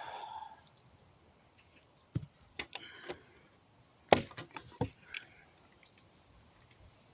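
Hammer knocks and wood cracking as nails are worked out of pallet planks: a handful of sharp, irregular strikes, the loudest about four seconds in.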